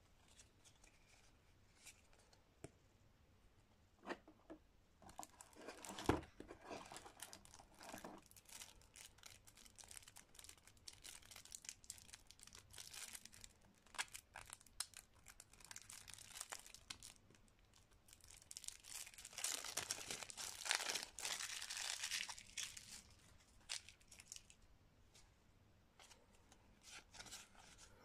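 Plastic shrink-wrap being torn off a deck of cards and crumpled, in scattered crackling bursts with small clicks. There is a sharp knock about six seconds in, and the crinkling is busiest about twenty seconds in.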